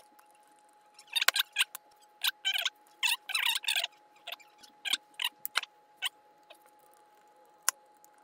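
Scratching and clicking of a small plastic push-button switch and its copper wire ends being handled and fitted together, with a screwdriver working a terminal screw, heard as clusters of short scrapes and clicks, busiest in the first half. A faint steady tone hums underneath.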